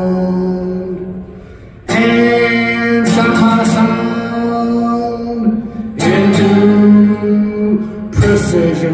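Music: guitar chords struck one at a time and left to ring out, a new chord about every two to three seconds.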